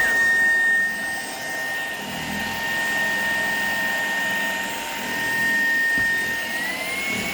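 Shark PowerDetect vacuum cleaner running with a steady high motor whine; about six and a half seconds in, the whine steps up in pitch as the motor speeds up.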